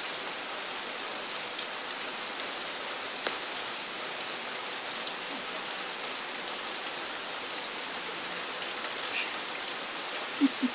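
Heavy rain pouring steadily, an even hiss, with one sharp click about three seconds in.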